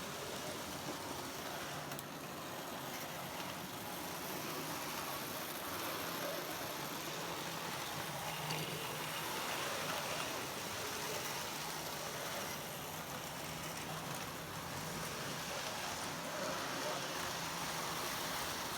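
Model railway diesel multiple unit running steadily round the track: an even electric motor hum with the rushing rumble of its wheels on the rails.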